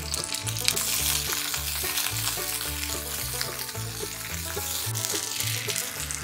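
Cherry tomato pieces sizzling in hot olive oil in a frying pan while being stirred with a wooden utensil; the sizzle thins out near the end. Background music with a steady repeating bass runs underneath.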